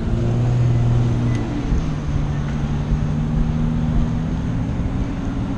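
Car engine and road noise heard from inside the moving car's cabin: a steady low hum with a rumble beneath it, its pitch shifting about two seconds in.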